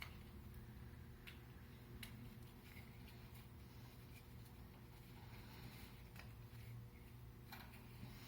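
Near silence with a low steady hum and about five faint, scattered clicks and taps: small parts and tools being handled as the new limit switch and its wire terminals are fitted back into the electric range.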